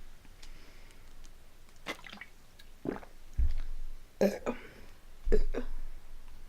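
Wet chewing and lip-smacking of someone eating soft pumpkin spice swirl bread: scattered short smacks and clicks, with a couple of dull low thumps.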